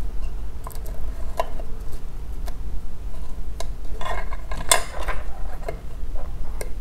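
Small clicks and taps of fingers handling an iPhone 7 logic board on a rubber mat as a sticker is peeled off and the board turned over, with a short burst of rustling and scraping about four seconds in. A steady low hum runs underneath.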